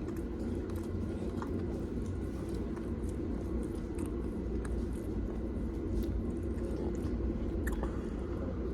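A person chewing a mouthful of sauced orange chicken, soft wet chewing with a few faint clicks, over a steady low hum.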